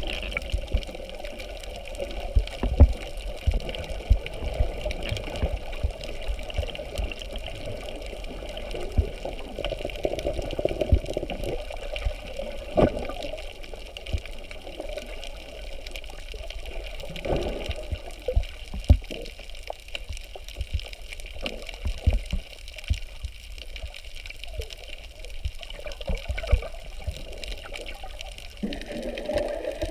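Muffled underwater noise picked up by a camera held below the surface: a steady water wash with many irregular low thumps and knocks.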